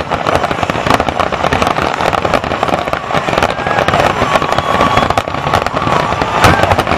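Fireworks display in a dense barrage: aerial shells bursting and crackling in rapid, overlapping cracks and pops, with one heavier boom about six and a half seconds in.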